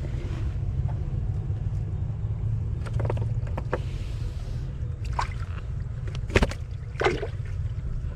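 A steady low rumble with a handful of sharp knocks and clicks scattered through it, the loudest about six and a half seconds in.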